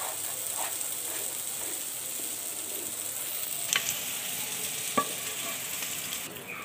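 A wooden spatula stirs and scrapes a thick jaggery-and-chhena sandesh mixture around a hot pan, over a steady sizzle; the mixture is cooked down and ready to set. The spatula knocks sharply on the pan twice, around four and five seconds in, and the sizzle drops away near the end.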